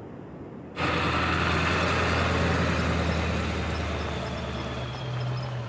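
Diesel engine of a 1996 Ford F-350 pickup with the 7.3 L Power Stroke, running steadily with a low hum, starting abruptly about a second in.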